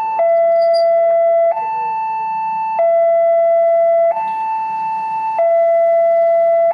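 Railway level-crossing warning alarm: an electronic signal alternating between a lower and a higher tone, each held about a second and a quarter. It warns that the crossing is closing for an approaching train.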